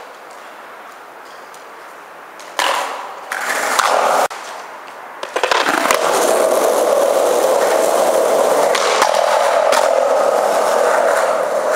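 Skateboard wheels rolling over asphalt, starting suddenly about two and a half seconds in, dipping briefly, then running loud and steady from about five and a half seconds on.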